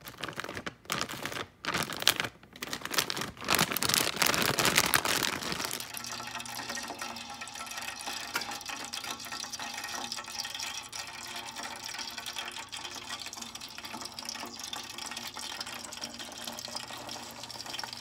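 A plastic bag of frozen crinkle-cut fries being handled, crinkling and rustling loudly for the first six seconds or so. Then hot frying oil in a pot hisses and sizzles steadily, with fine crackles.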